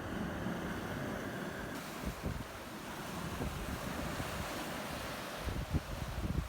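Strong wind gusting against the microphone, with uneven low buffeting over a steady rushing noise.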